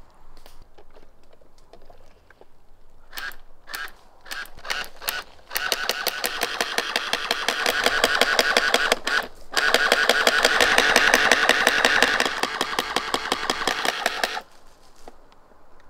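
Electric water gun's pump firing: a few short bursts about three seconds in, then a long, rapidly pulsing buzz of continuous fire, broken once partway, that cuts off near the end.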